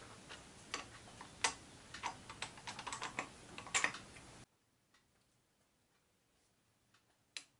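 Quick, irregular light clicks and taps of small steel parts being handled and set against a steel surface, a dense run of them over the first four seconds or so. Then the room noise drops away abruptly, leaving a few faint ticks and one sharp click near the end.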